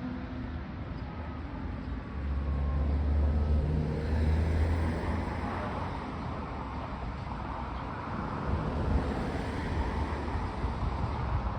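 Fire engine's diesel engine running with road and tyre noise, a low rumble that swells about two seconds in and again near the end.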